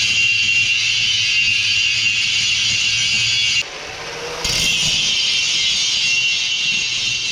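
Power grinder's grinding wheel grinding on metal: a loud, steady, high hiss with a thin whine. It eases off for about a second midway, then bites in again.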